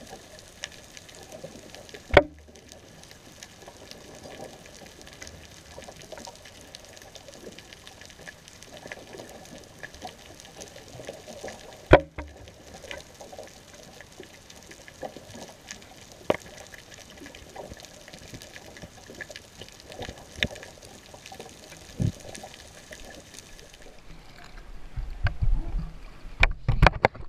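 Underwater sound picked up through a GoPro's waterproof housing on the seafloor: a steady hiss with scattered small clicks and two sharp knocks, one about two seconds in and one about twelve seconds in. Near the end the camera comes up out of the water, and the hiss gives way to louder low splashing and buffeting.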